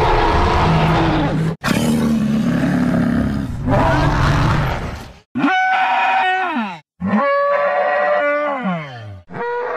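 Dubbed dinosaur roar sound effects: two long, rough roars, then two shorter calls with a clear pitch that each drop in pitch at the end.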